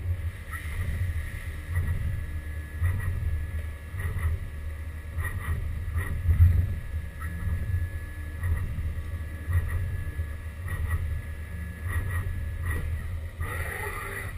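Haas VF2 CNC vertical mill running, with a steady high whine over a low rumble and irregular light ticks.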